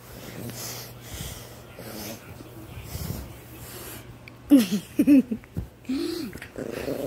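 A pet grumbling and breathing noisily close to the microphone. A few short, loud vocal sounds that waver up and down come about halfway through and again near the end.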